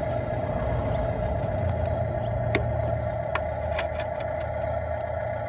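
Toy RC rear-loader garbage truck humming steadily with an idling-engine sound, with a few sharp plastic clicks about midway as a small bin is hooked onto its rear lift arm.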